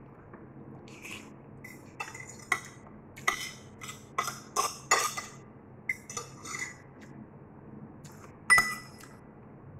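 Metal fork and spoon clinking and scraping against a ceramic plate while food is picked apart: a run of quick, irregular clinks for several seconds, then a pause and one sharper clink near the end.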